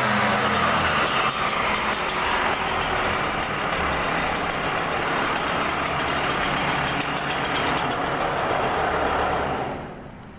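Yamaha YZ125's two-stroke single-cylinder engine running steadily. Near the end the sound drops away sharply.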